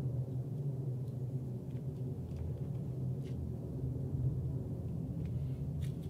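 Steady low background hum, with a few faint ticks as paper strips are pressed down with a glue brush.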